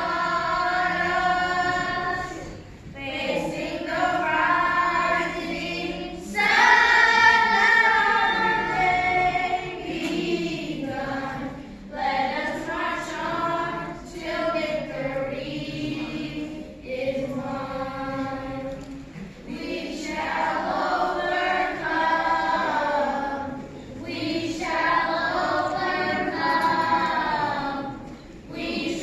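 Children's gospel choir singing together, phrase after phrase with short breaks between them.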